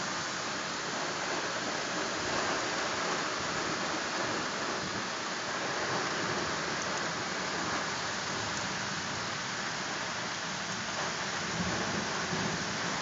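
Steady rain in a thunderstorm, with a low rumble of thunder swelling briefly near the end.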